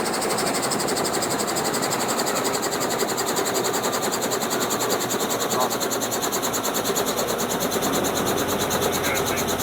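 Robinson R44 helicopter in flight, heard from the cabin with its doors off: steady, rapid, even chop of the main rotor blades over the piston engine's drone and a rush of wind.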